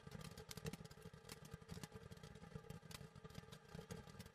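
Frog Prince firework fountain burning, heard faintly: a steady rush of spraying sparks with many irregular crackling pops.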